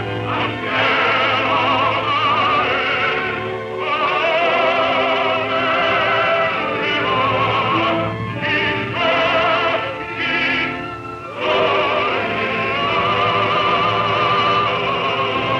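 A deep male solo voice singing in a full operatic style with wide vibrato, holding long notes broken by short breaths. The early sound-film recording carries a steady low hum beneath the singing.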